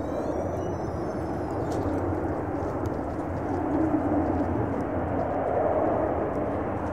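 De Havilland Canada Dash 7's four turboprop engines running, a steady drone that swells slightly about four and six seconds in.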